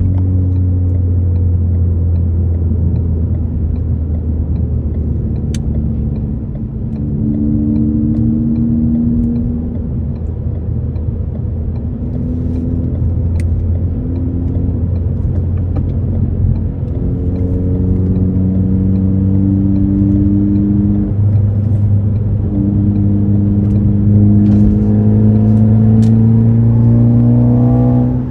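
A 2018 Ford Focus ST's turbocharged 2.0 EcoBoost four-cylinder with an aftermarket axle-back exhaust, accelerating under way. The engine note climbs in pitch several times with drops in between, over a steady low exhaust drone.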